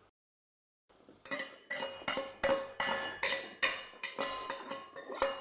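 Metal spoon stirring in a metal cooking pot, knocking against it about three times a second with a short ringing tone on each strike, starting about a second in.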